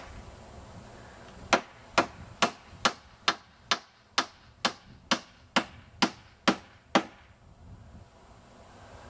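Hammer blows, a steady run of about a dozen sharp strikes at roughly two a second, stopping about seven seconds in.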